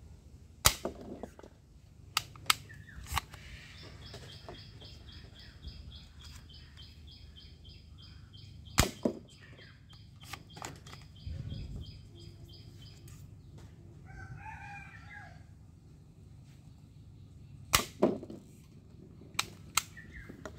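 Sharp plastic clicks and snaps from a toy gun being handled and worked: a few close together in the first three seconds, one about nine seconds in, and several more near the end. In between, a fast high chirp repeats about four times a second for several seconds.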